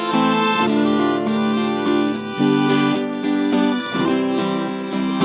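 Instrumental break in a live sertanejo song: held chords over plucked strings with a steady beat, no singing.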